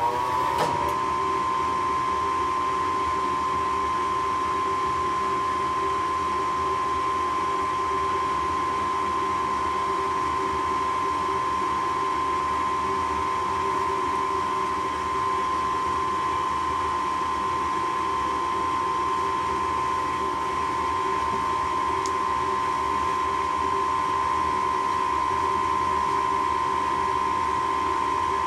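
Furnace running steadily: a constant rushing noise with a fixed whine on top.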